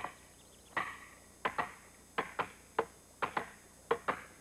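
A hammer knocking wooden grave crosses into the ground: about ten sharp knocks, each with a short ring, roughly one or two a second and sometimes in quick pairs.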